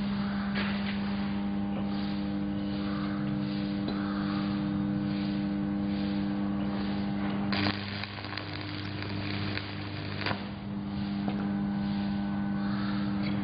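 Stick (shielded metal arc) welding: the electrode arc crackles steadily over the buzzing hum of the welding machine. About 8 seconds in, the hum drops to a lower tone and the crackle thins for a couple of seconds before both return.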